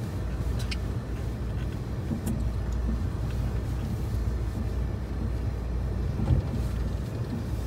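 Vehicle driving slowly over a rough dirt road, heard from inside the cab: a steady low rumble of engine and tyres with small rattles and knocks, and one sharper jolt about six seconds in.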